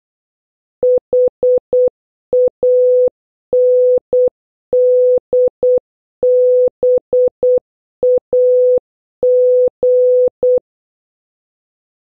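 Morse code practice tones, a steady mid-pitched electronic beep keyed into short dits and long dahs, spelling the word HANDBAG (.... .- -. -.. -... .- --.). The tones stop about ten and a half seconds in.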